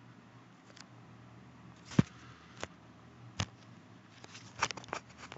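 A few sharp knocks and taps from a laptop being handled, the loudest about two seconds in and a quick cluster near the end, over a steady low hum.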